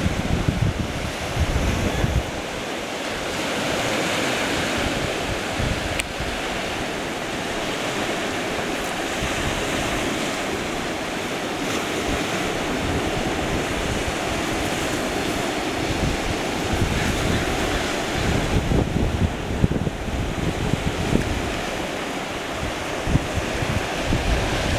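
Waves washing on the beach as a steady rush, with wind buffeting the microphone in low gusts for the first couple of seconds and again through the last several seconds.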